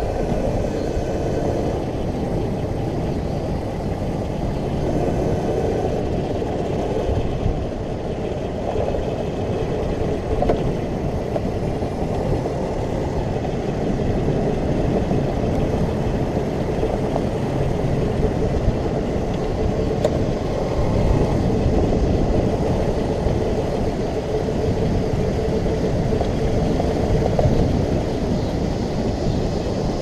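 A 24-volt modified Power Wheels ride-on car driving steadily: a constant rolling rumble from its wheels on the path, with a faint steady whine from its electric drive motors and gearboxes.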